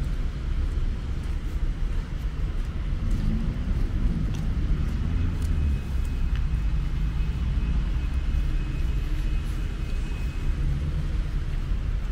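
Tram running along its track, heard from inside the car: a steady low rumble with scattered clicks. A pitched whine glides up and down about three to five seconds in, and a thin high tone holds from about five seconds to near the end.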